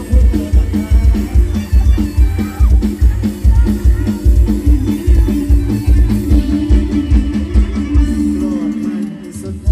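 Live band on a rot hae sound truck playing upbeat Isan lam phloen dance music: a heavy, steady kick-drum beat under bass, electric guitar and keyboard. Near the end the drums briefly drop out before the band comes back in.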